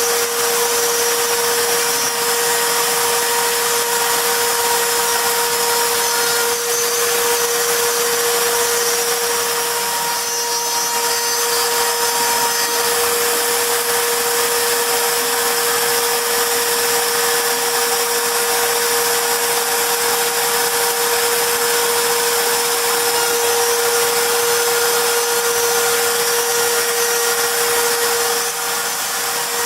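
CNC router spindle running steadily with a high-pitched whine while engraving a wooden plaque, the bit cutting the wood with a steady hiss; the sound dips briefly about ten seconds in and again near the end.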